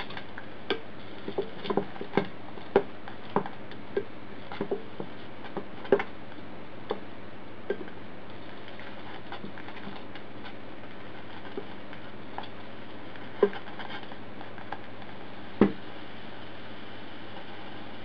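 Wooden spatula stirring thick squash purée in a stainless steel saucepan: irregular knocks and taps of the wood against the pot, frequent for the first several seconds and then sparser, with two louder knocks near the end, over a steady hiss.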